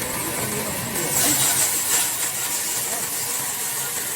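A power tool cutting wood, a steady hiss that swells louder for about a second, starting about a second in.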